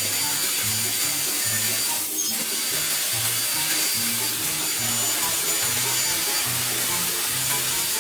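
Background music with a bouncing bass line of short repeated notes, over a steady hissing noise.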